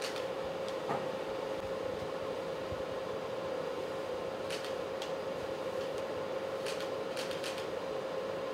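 Steady hum of room air conditioning, with one steady mid-pitched tone running through it. A few faint, short clicks come from about halfway to near the end.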